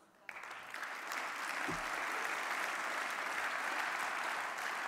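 Audience applauding, breaking out just after the start and swelling into steady clapping.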